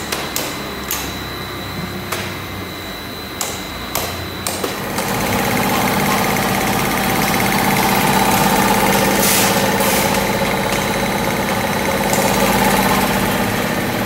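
Industrial machinery in a battery-recycling smelting plant, running with a steady hum that grows louder about five seconds in. Before that, scattered metallic knocks and clanks sound over a steady high whine.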